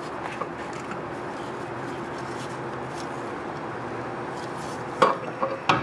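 Two sharp metal clunks near the end as a loosened starter motor is shifted forward against the transmission's block plate, over a steady low hum.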